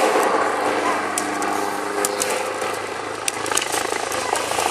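Helicopter flying overhead: a steady engine drone with a faint regular rotor beat in the second half.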